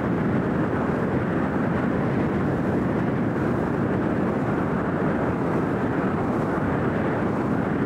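Steady rushing noise of wind on the microphone and a motorboat running under way, even in level with no distinct engine note.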